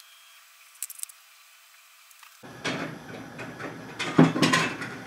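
Kitchen handling noises: a few faint ticks, then from about halfway in a rustle with several knocks and clatters, the loudest a little after four seconds in.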